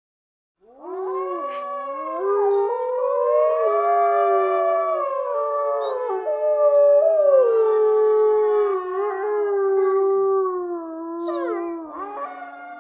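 Dogs howling: long, drawn-out howls that begin about half a second in, with several voices overlapping at different pitches and sliding up and down.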